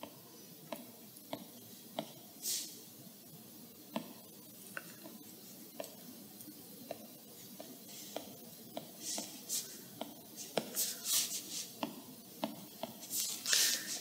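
Stylus tip tapping and dragging on an iPad's glass screen: light, irregular taps with a few short scratchy strokes, busier near the end.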